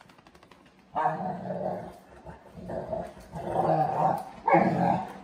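Dogs play-fighting and growling in repeated short bouts, starting about a second in and loudest near the end.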